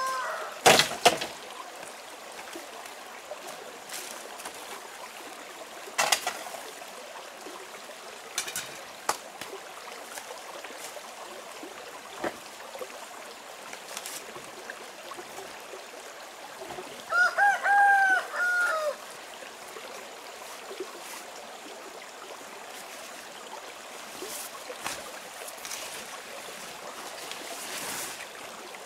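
A rooster crows once, about two-thirds of the way in, over a steady hiss of running water, with a few scattered light knocks and rustles.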